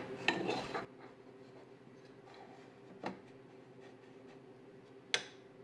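Light metal clicks and handling noise from the clutch release fork and cross-shaft being fitted in a Triumph TR4 gearbox bellhousing. They are busiest in the first second, then come as two single clicks about three and five seconds in, over a faint steady hum.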